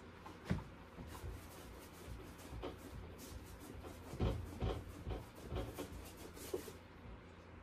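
Paintbrush scrubbing and dabbing paint onto a large stretched canvas: irregular rubbing strokes with dull thumps from the canvas, the loudest cluster about four seconds in.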